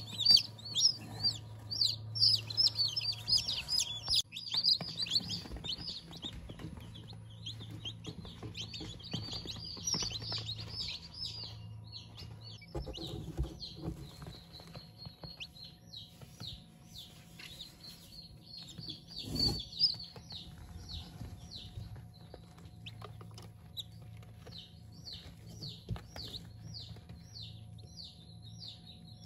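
Chickens peeping and chirping in quick, high, falling notes, dense and overlapping at first, then thinning to a regular run of short peeps, over a steady low hum. A brief louder sound breaks in about twenty seconds in.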